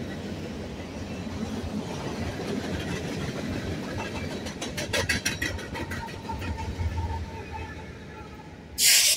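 Freight train passing: covered hopper cars rolling by with a run of wheel clicks over the rail joints, then a BNSF diesel locomotive at the rear of the train going past with a low engine rumble and a steady tone. Near the end, a short, loud hiss.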